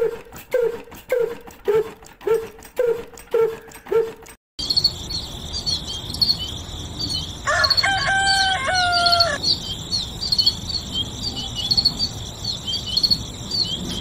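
Hand-cranked model chaff cutter squeaking in a steady rhythm, about twice a second, for the first few seconds. Then countryside ambience: rapid high chirping of crickets and birds over a steady hiss, with a rooster crowing once about halfway through.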